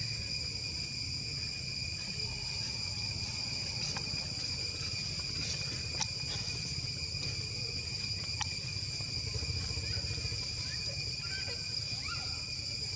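Insects droning steadily in high, unbroken tones over a low background rumble, with a few sharp clicks and some faint short chirps near the end.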